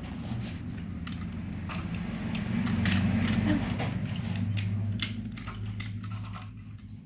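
Toy cars being handled: a run of small, sharp clicks and clinks, irregular and scattered throughout, over a low steady hum.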